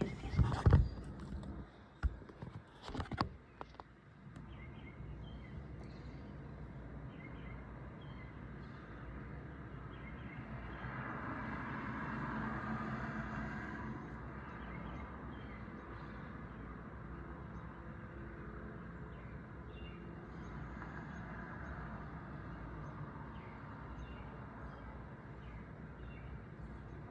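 Several sharp pops or knocks in the first few seconds, then steady outdoor night background noise. The background swells for a few seconds around the middle and carries faint scattered chirps.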